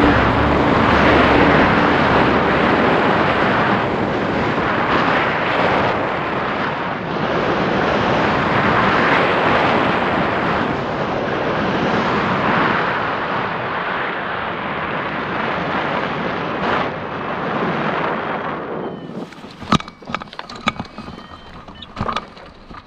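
Rushing wind buffeting the microphone of a camera mounted on a hang glider in flight, swelling and easing, then dying away about 19 seconds in. A few sharp knocks and clicks follow as the glider comes to rest on the ground.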